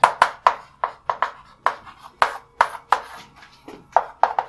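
Chalk writing on a chalkboard: a quick, irregular run of short taps, about four a second, as each stroke hits the board.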